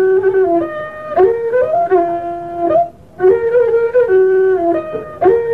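A flute playing a melodic interlude of held notes stepping up and down, in two phrases with a brief gap about three seconds in.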